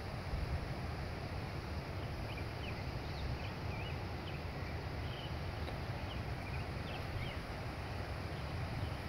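Steady wind rumble on the microphone, with faint, scattered high bird chirps from about two seconds in until near the end.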